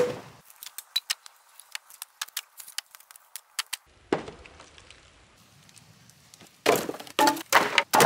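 Thin sawmill slabs of wood being set down on a stacked pile, knocking wood on wood. A loud knock at the start is followed by a run of small light clicks and ticks, another knock about four seconds in, and a quick cluster of louder knocks near the end.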